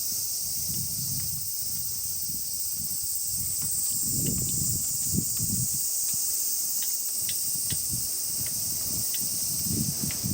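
A steady high-pitched insect chorus, with irregular low rumbling gusts of wind on the microphone and a few faint ticks.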